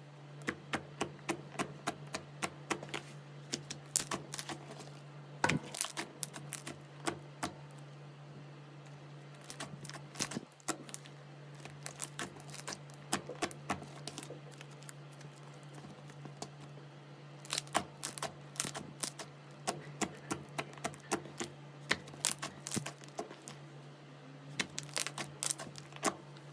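Slime being pressed and poked, giving runs of sharp clicking and popping crackles, over a steady low hum.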